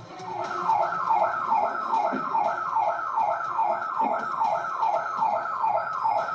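A security alarm siren set off by an attempted break-in, sounding a fast repeating falling whoop of about three sweeps a second.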